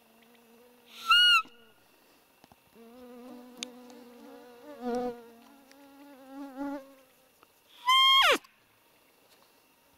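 Hand-blown roe deer call (fiep lure) sounded twice close by: a short high squeak about a second in and a longer one near the end that slides steeply down in pitch, imitating a roe's fiep. In between, a fly buzzes near the microphone.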